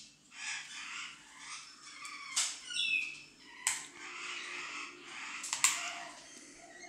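Handling noise from small plastic experiment items: patchy rustling and scraping with a few faint squeaks and three sharp clicks, the loudest near the end.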